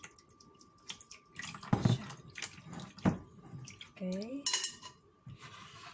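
Water draining and dripping from a stainless steel mesh strainer of soaked rice sticks into a plastic bowl, with several knocks and clinks as the strainer and a glass bowl are handled.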